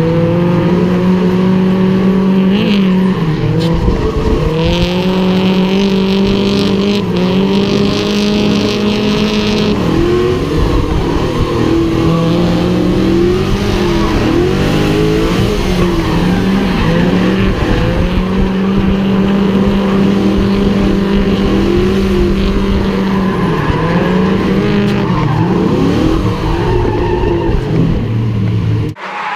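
A Pontiac GTO's V8 engine is held at high revs through a drift, its pitch dipping and climbing back every few seconds. Tyres squeal, most strongly in the first ten seconds. The sound cuts off suddenly near the end.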